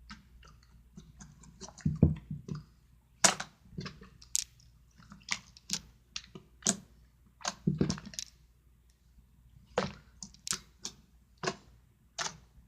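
Slime being squished and played with by hand, giving irregular sticky clicks and pops, with a couple of duller, heavier squelches.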